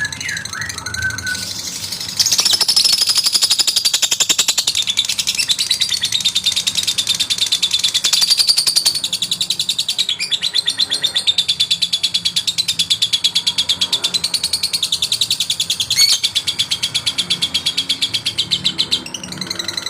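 Male lovebird giving a long, very rapid chattering trill of high-pitched notes (the "ngekek" chatter), starting about two seconds in after a few short whistles and running on almost without a break.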